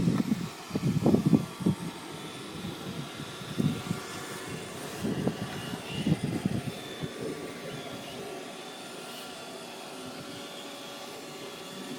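iRobot Roomba 580 robot vacuum running, with a steady motor whine. Irregular low thumps and rumbles come through the first seven seconds or so, then stop.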